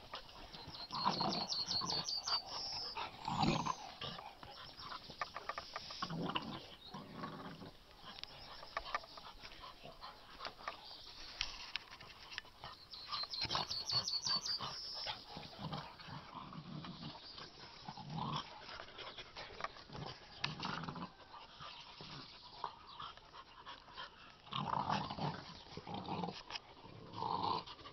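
Puppies play-fighting, growling in irregular bursts.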